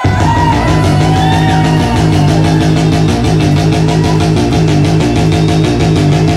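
A loud backing track from the DJ's decks through the club's PA, kicking in abruptly with a heavy, repeating bass line.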